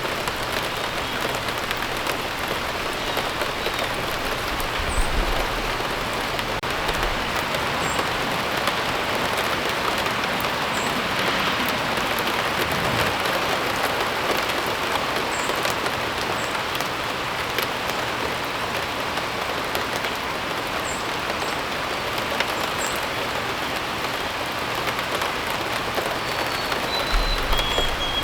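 Steady rain falling, an even hiss of drops on surfaces. A few short high bird chirps sound through it, with a bird calling a few notes near the end.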